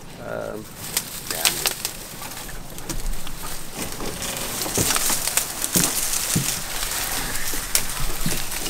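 Dry marsh reeds and cane stalks rustling and crackling as people push through them on foot, with many sharp snaps of stalks breaking. The noise gets denser from about three seconds in, as the camera enters the reeds.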